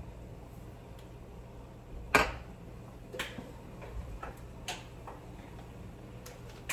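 Kitchen utensils and cookware knocking on a saucepan and the cooktop: one sharp clack about two seconds in, then several lighter clicks, over a low steady hum.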